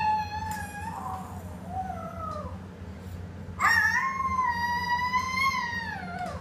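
An animal howling: two long, high calls, each held at a steady pitch for a second or two and sliding down at the end, the second louder and longer.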